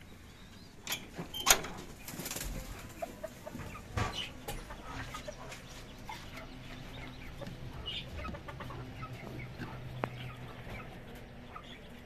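Chickens clucking, with sharp knocks and rattles of wire cages and wooden nest boxes being handled; the loudest knock comes about a second and a half in.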